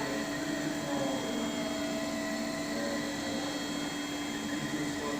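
Clay 3D printer running: a steady machine hum with several constant tones over a light noise.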